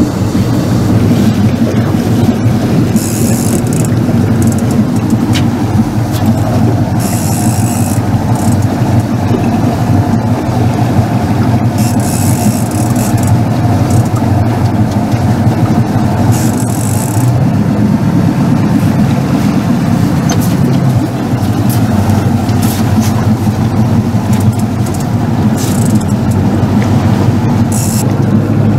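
Boat motor running steadily, a continuous low hum with short hisses every few seconds.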